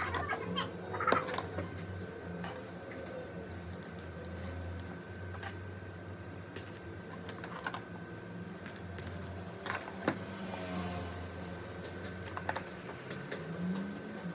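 Scattered light clicks and taps, a few of them sharper near the middle, over a steady low hum.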